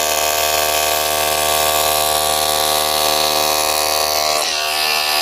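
ACROPOW SDS-Plus cordless rotary hammer with brushless motor, running at a steady high speed while drilling into a piece of wood. Its pitch dips slightly about four and a half seconds in.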